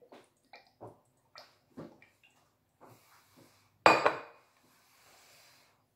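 Glass oil cruet over a glass baking dish: a series of light taps and drips while oil is poured, then one loud glass clink just before four seconds in as the bottle is set down, ringing briefly.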